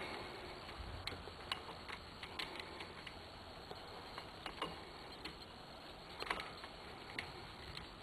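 Faint, irregular small metallic clicks and taps from parts and hand tools being handled while the clutch hub nut is fitted.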